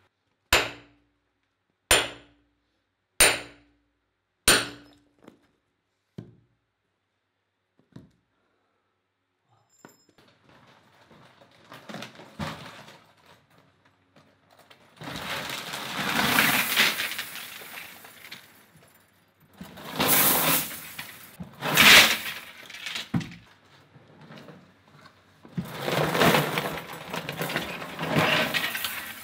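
A hammer strikes a steel splitting wedge set into a boulder: four sharp, ringing blows about 1.3 s apart, then a few faint knocks. Later, tangled red wire is tipped from a plastic bucket into a wooden bin, a long rustling clatter in three spells.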